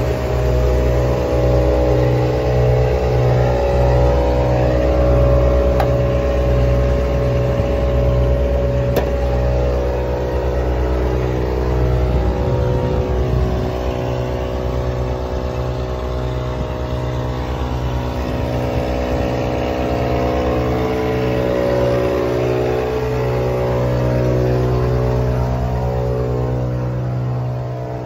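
Diesel engine of a refrigerated truck running steadily at idle. Its low note pulses in a regular beat at first and runs smoother from about halfway through.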